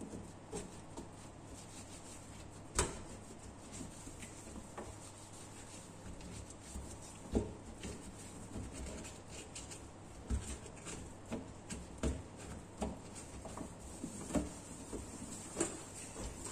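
Cloth towel wiping and rubbing over a stainless steel gas stove top, with scattered light knocks and clicks, the sharpest about three seconds and about seven seconds in.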